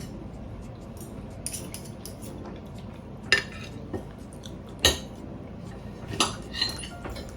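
Cutlery clinking against plates during a meal: a handful of sharp clinks and scrapes, the loudest about three and five seconds in, and a few more near the end.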